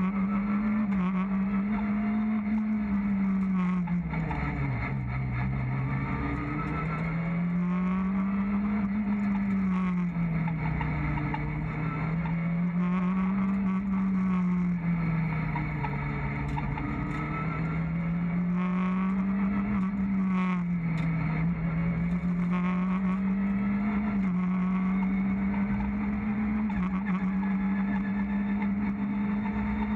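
Renault Clio R3 rally car's 2.0-litre four-cylinder engine heard from inside the cabin, driven hard, its revs rising and falling in long swings every few seconds as it accelerates and slows for corners.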